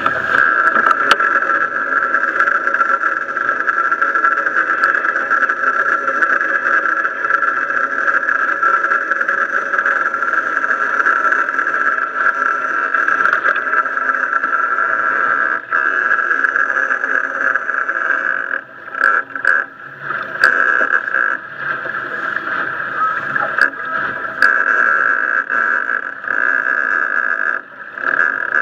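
Boat engine running steadily under way, mixed with wind and water noise against the hull, with a strong steady drone throughout. About two-thirds of the way through, the sound dips and breaks several times, with a few brief knocks.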